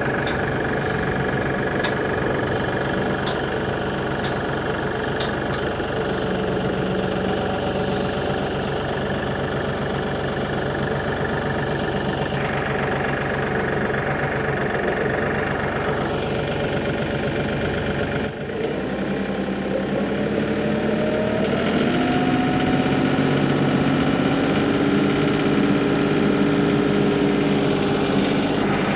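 Kioti DK6010 SE compact tractor's diesel engine running as the tractor is driven slowly. About two-thirds of the way through, the engine speed rises over a few seconds and then holds steady at the higher speed.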